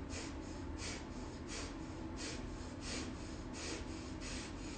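A woman doing rapid nasal 'dog breathing' with her mouth closed: quick sharp sniffs in and out through the nose, in even pairs at about one and a half breaths a second.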